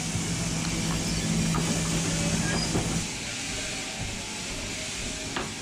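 A motor-driven machine running with a steady hum over a hiss; the hum cuts out about three seconds in while the hiss carries on.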